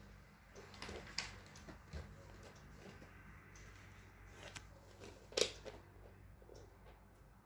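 Faint scattered clicks and rustles over quiet room tone, with one sharper click about five and a half seconds in.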